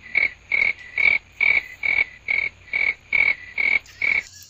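A frog-like croak repeated evenly, about two and a half calls a second, every call alike, stopping abruptly about four seconds in.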